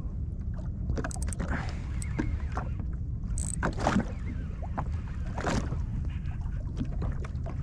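Water splashing and slapping against the hull of a Sea-Doo jet ski in a series of short splashes, the strongest about four and five and a half seconds in, over a steady low rumble.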